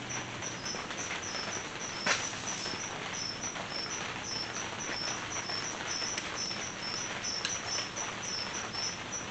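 Cricket chirping steadily, about five high chirps a second alternating between two close pitches. Over it, light metal clicks come from snap-ring pliers working at the transfer case's rear output-shaft lock ring, the loudest about two seconds in.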